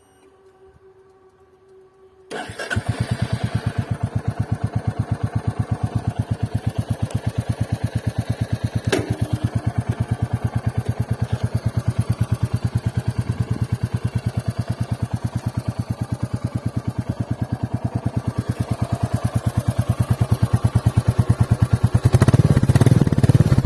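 Royal Enfield Classic 350's single-cylinder engine starting about two seconds in, then idling with an even, regular thump from the exhaust. It gets louder near the end.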